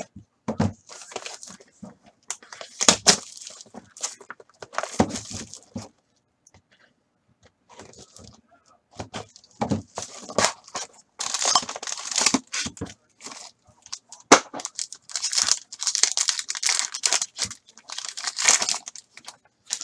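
Plastic shrink wrap being torn and crumpled off a sealed trading-card box, with the cardboard box being handled. The crinkling and tearing come in irregular bursts, pause briefly midway, then grow denser and louder in the second half.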